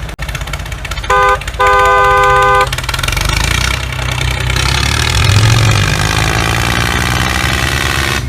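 A vehicle horn honks twice, first a short blast and then a longer one, followed by an engine running with its pitch gliding up and down.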